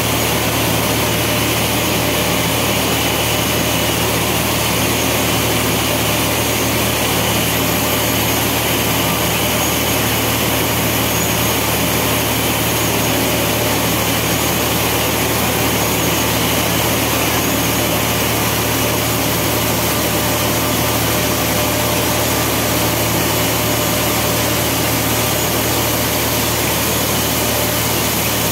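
Fortified rice kernel making machinery running: the extruders and the motors of the line give a steady, loud machine hum with a broad hiss over it.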